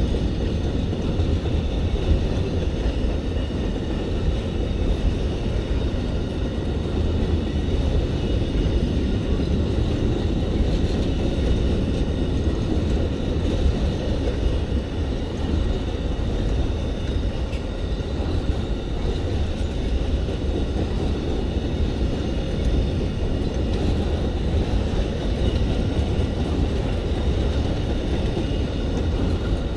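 Train rolling slowly past on the track, a steady continuous rumble of its cars going by.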